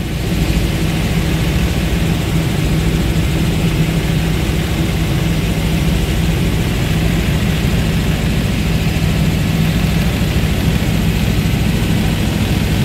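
A helicopter's engine and rotor heard from inside the cabin in flight: a steady drone with a low hum.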